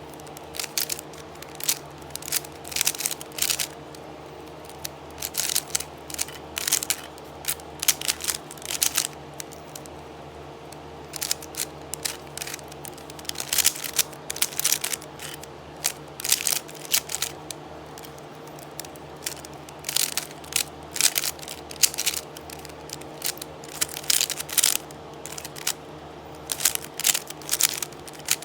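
Rubik's brand 3x3 cube being turned during a solve: quick flurries of plastic clicking turns, separated by short pauses.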